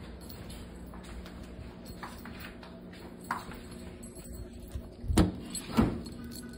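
A few soft clicks, then two louder knocks about half a second apart near the end, over a faint steady hum.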